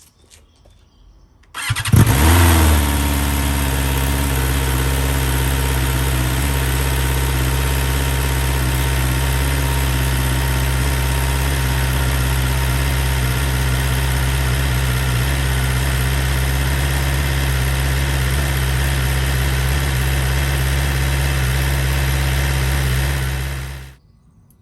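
BMW S1000R's inline-four engine starting on the starter, catching about two seconds in with a brief rev flare. It then settles into a steady idle and is switched off abruptly near the end.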